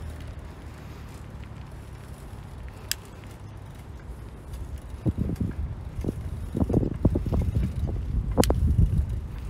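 Wind buffeting the microphone of a camera carried along a path, in irregular low gusts from about five seconds in, with a sharp click about three seconds in and another near the end.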